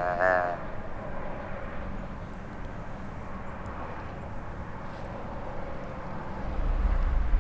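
A drawn-out, buzzy deer grunt call dies away about half a second in. After it comes a steady, distant low rumble of open country, with a deeper rumble building near the end.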